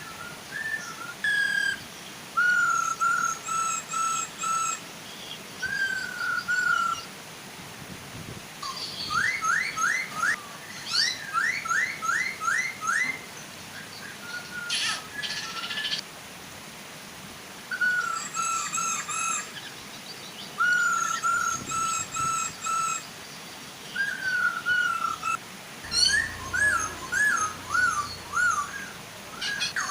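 Poksay hongkong laughingthrushes calling in loud, clear whistled phrases: repeated short notes in groups, with fast runs of rising whistles in the middle. A gentle waterfall rushes steadily beneath.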